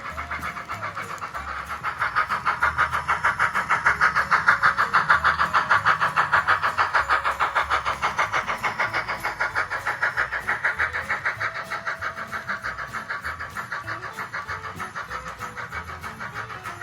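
Model train running past on the layout track: a rapid, even clicking about five times a second that grows louder, peaks, then slowly fades as it passes.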